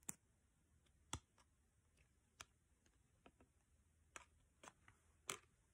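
Near silence in a small room, broken by a few faint, sharp clicks about one a second, the loudest about a second in and near the end.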